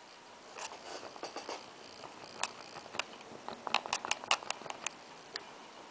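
A thin rod stirring and tapping in a small cup, mixing titanium dioxide powder with sesame oil into a homemade heat-transfer paste: a string of light clicks and scrapes, busiest about four seconds in.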